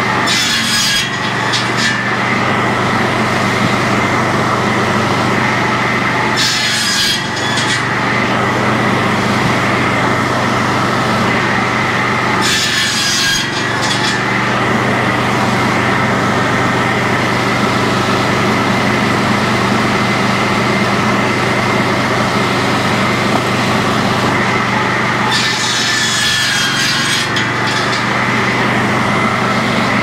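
Sawmill board edger running with a steady mechanical hum, its circular blade ripping through boards four times, each cut a second or two long.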